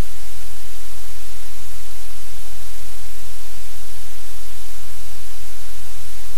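Loud, steady static hiss with a low hum underneath; no other sound stands out.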